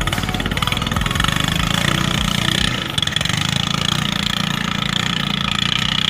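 Katinting longtail boat engine running steadily under test, a fast, even firing beat with a strong buzzing drone.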